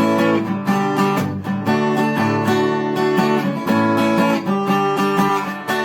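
Acoustic guitar strummed in steady, evenly repeated chords.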